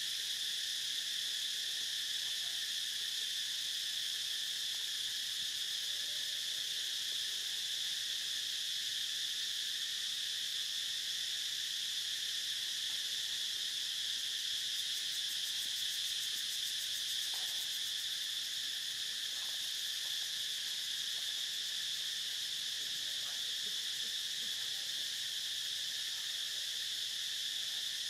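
Steady chorus of insects: a continuous high-pitched shrill drone at an even level, with a few faint short sounds well beneath it.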